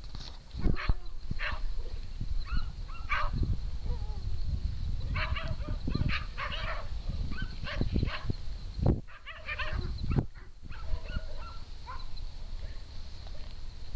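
Dogs barking and yipping in short, repeated calls, over a low rumble on the microphone.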